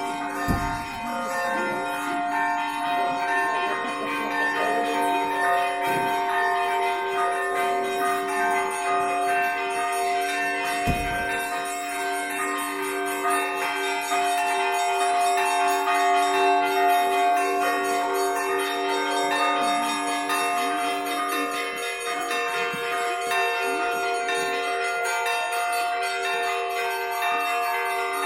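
Russian Orthodox church bells ringing in a continuous peal, many bells of different pitches sounding together and overlapping without a pause.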